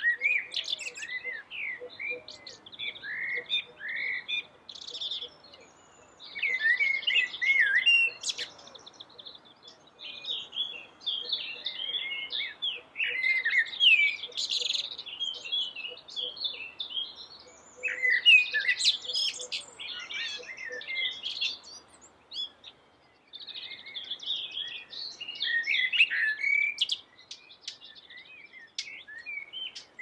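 Male common blackbird singing: phrases of warbled, gliding whistles, each lasting a few seconds, with short pauses between them.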